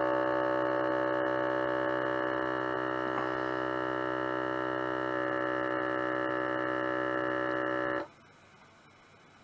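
Vacuum sealer's pump humming steadily as it draws the air out of a bag of partly frozen soft crabs, then cutting off abruptly about eight seconds in as the bag is drawn tight and the machine moves to sealing.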